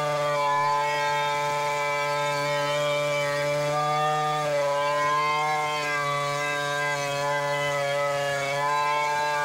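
Stihl chainsaw running at full throttle while ripping a large log lengthwise. The steady high engine note sags slightly in pitch a couple of times under the load of the cut.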